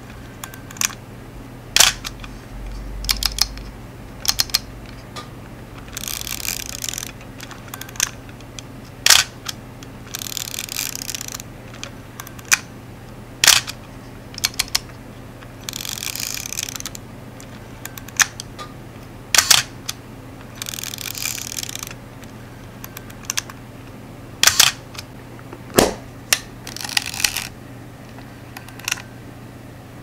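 Nikon FM2 35 mm film SLR being worked by hand, over and over: about a second of ratcheting rasp as the film advance lever cocks the shutter, then sharp clicks as the mechanical metal focal-plane shutter fires. About five such wind-and-fire cycles, with a few lighter clicks in between.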